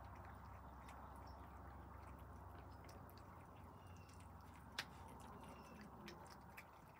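Faint wet clicking of cats chewing soft food from a plate, with one sharper click about five seconds in.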